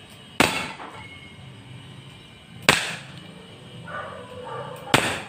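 Three shots from a CO2 airsoft revolver firing 6mm steel BBs at a tin can, each a sharp crack with a short ring, a bit over two seconds apart.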